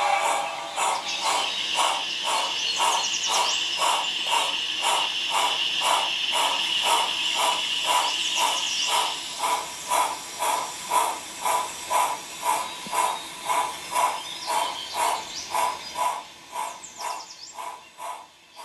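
Model steam locomotive No.50, built after the ex-Uintah No.50, chuffing at an even beat of about two exhaust beats a second. A steady high hiss runs under the chuffs for the first half, and the beats fade over the last few seconds.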